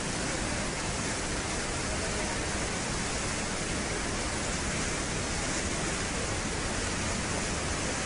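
A muddy flash-flood torrent rushing, a steady noise of churning floodwater with no let-up.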